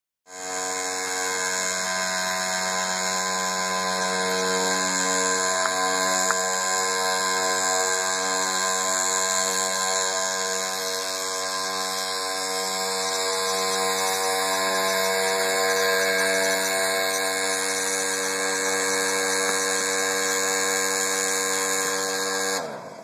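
Small motor of a homemade gyrocopter prototype running at a steady high-pitched whine with many overtones while the rotor turns. It winds down and cuts off near the end.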